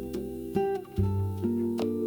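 Background music: gentle plucked acoustic guitar with a low bass line.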